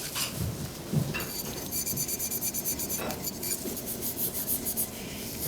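Waterproof sandpaper rubbed by hand over a ceramic plate in quick, even strokes, about five a second, with a couple of light knocks in the first seconds.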